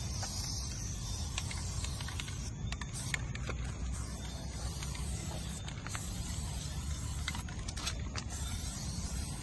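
Aerosol spray paint can hissing as a tag is sprayed onto concrete, brightest in about the first second, over a steady low rumble, with scattered light clicks.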